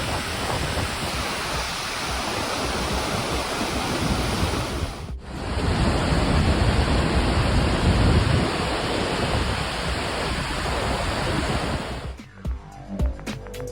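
Waterfall rushing: a loud, steady torrent of falling water that drops out briefly about five seconds in and comes back. Near the end the water stops and electronic music with a steady beat begins.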